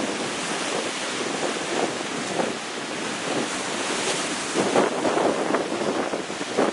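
Sea waves breaking and washing against rocks at the foot of a cliff: a steady rushing surf that swells into a louder surge about two-thirds of the way through.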